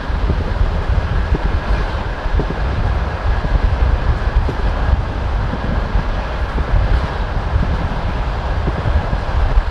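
Passenger train carriage running along the track: a steady, loud rumble of wheels on rail with scattered short clicks and knocks from the wheels.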